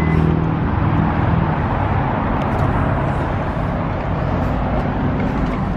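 Subaru WRX STI's turbocharged flat-four boxer engine idling steadily while it warms up, heard through the open driver's door.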